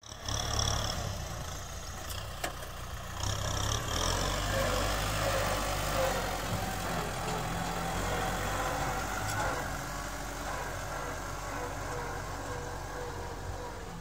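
Kubota tractor's diesel engine running steadily under load as it pulls a disc plough through dry field soil.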